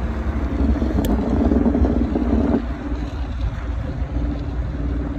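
Vehicle engine running while driving on a dirt trail. It swells louder about a second in, then eases off sharply about two and a half seconds in, with a single click about a second in.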